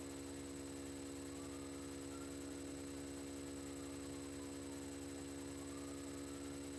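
Steady electrical hum: a low drone with several even overtones and a thin high whine above it, unchanging.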